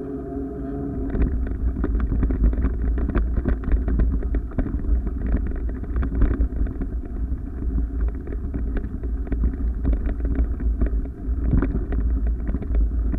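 Wind buffeting the microphone of a moving camera: a heavy low rumble with gusty crackle that takes over about a second in, as a steady tone fades out.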